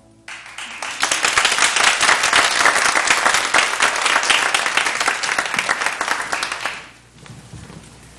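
Audience applauding: dense clapping starts as the music stops, holds for about six seconds, then dies away.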